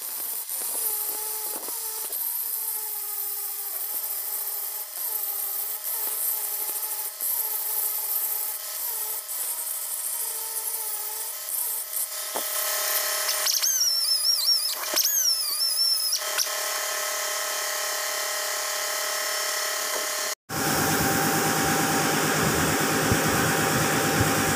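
Electric angle grinder grinding the steel spindle (steering knuckle) of a Case 580M backhoe, its motor whine wavering in pitch as it bears on the metal and rising for a few seconds around the middle. About 20 seconds in it cuts off sharply, and a steady low mechanical running hum follows.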